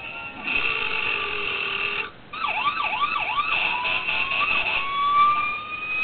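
Recorded siren sound effect played through a hard drive converted into a speaker, thin and cut off above the mid-highs. It starts with a steady tone, breaks off briefly, then gives four fast yelping sweeps and goes into a slow rising wail.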